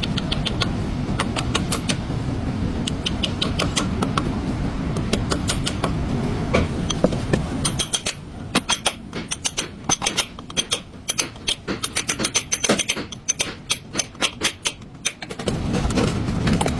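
Hand tools clicking and clinking against metal parts during a car repair, a quick irregular run of sharp clicks through the middle, over a low steady rumble at the start and end.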